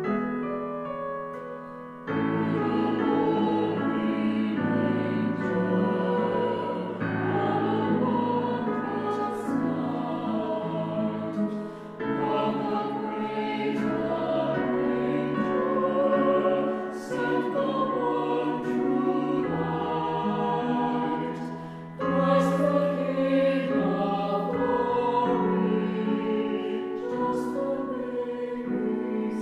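A piano chord dies away, then about two seconds in a small mixed choir of six voices begins singing a Christmas piece, in long phrases with short pauses for breath about every ten seconds.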